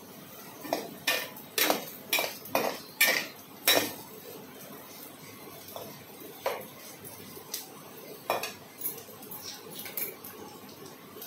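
Sharp metallic clinks of kitchen utensils, a knife against a steel bowl: about eight quick clinks in the first four seconds, then a few fainter, sparser ones.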